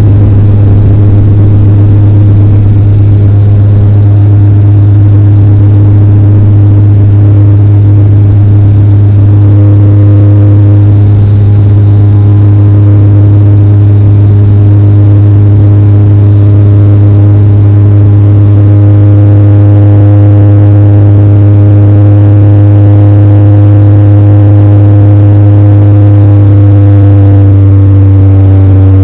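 Airliner engine noise inside the cabin: a loud, steady low drone with several held tones above it, some of which slide in pitch near the end.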